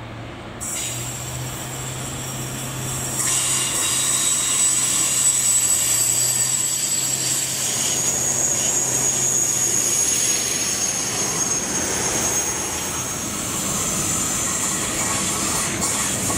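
Yellow track-maintenance train with a Plasser & Theurer Unimat tamping machine passing on the rails, its diesel engines giving a steady low hum under a high whine. It grows louder about three seconds in as the machine comes by.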